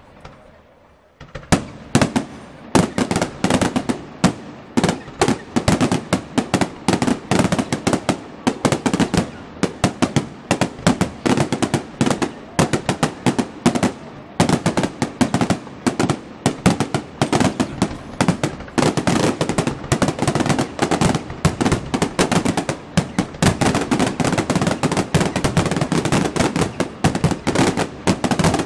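Aerial fireworks display: after a brief lull, a dense, unbroken barrage of shell bursts begins about a second and a half in, with many sharp bangs a second.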